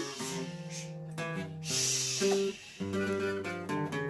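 Live punk band playing an instrumental break, led by strummed acoustic guitar.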